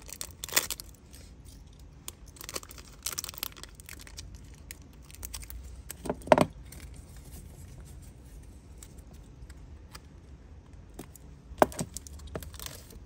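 Metal Zippo lighters being handled, with scattered metallic clicks and clinks among some rustling of plastic wrapping. The sharpest clacks come about six seconds in and again near the end.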